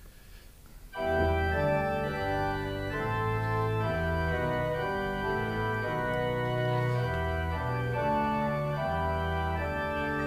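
Church organ postlude starting about a second in after the dismissal: sustained chords over a bass line that moves every second or so.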